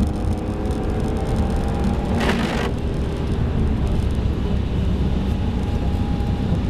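BMW E46 M3's straight-six engine running at speed, heard inside the cabin, its note climbing over the first couple of seconds and then holding steady, over tyre and road noise on a wet track. A short swish comes about two seconds in.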